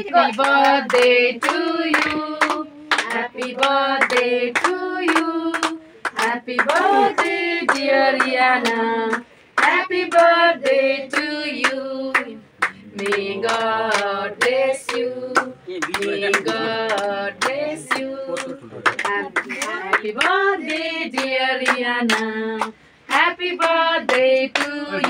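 A family group of women's and children's voices sings a birthday song together while clapping along in time, in phrases a few seconds long with short breaks between them.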